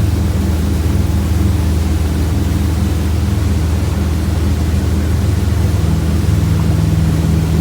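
Boat engine running steadily in gear at about 2,500 RPM, its pitch and loudness holding even.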